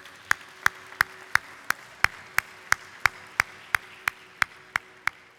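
One person clapping hands close to a podium microphone: sharp, evenly spaced claps, about three a second.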